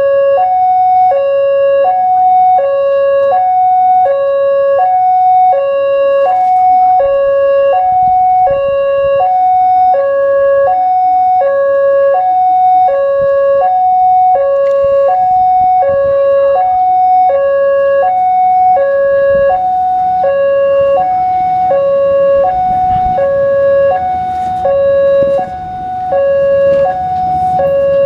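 Indonesian railway level-crossing alarm sounding from its pole-mounted loudspeaker. It is an electronic two-tone warning that alternates evenly and without pause between a lower and a higher note, the signal that the barriers are down and a train is coming.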